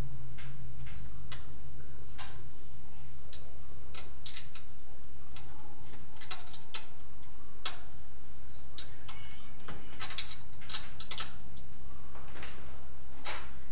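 Irregular metallic clicks and clinks of hand tools on metal parts in a car's engine bay during an alternator change, some coming in quick little runs, over a steady low hum.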